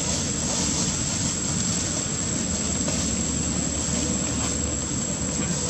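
Steady outdoor background noise: a constant high-pitched whine over a broad rumbling hiss, even in level, with no distinct events.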